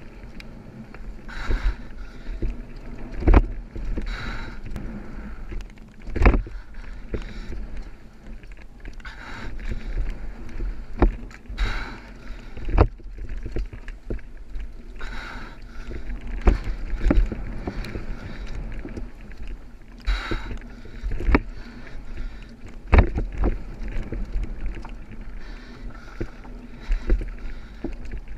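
Mountain bike descending a dry dirt trail at speed: a steady low rumble of tyres on loose dirt and wind across the microphone, broken by frequent irregular knocks and rattles of the bike's frame and chain over bumps.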